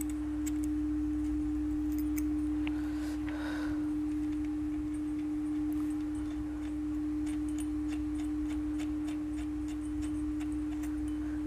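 A steady single-pitched hum that holds one tone without wavering, over a low background hum, with faint light clicks scattered through it.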